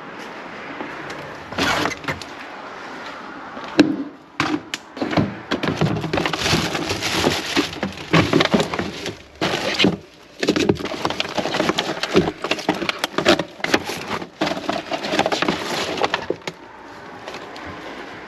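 Plastic food packaging (clear clamshell trays and bagged produce) crackling and clattering as it is rummaged through and lifted out of a plastic wheelie bin. The handling is almost continuous, with many sharp clicks and knocks, and it is quieter at the start and near the end.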